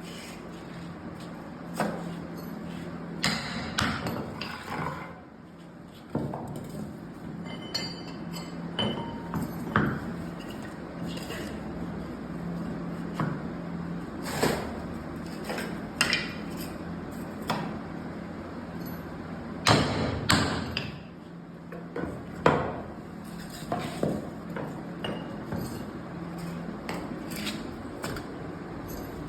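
Irregular sharp knocks and taps, as of tools striking wood, coming every second or two over a steady low hum.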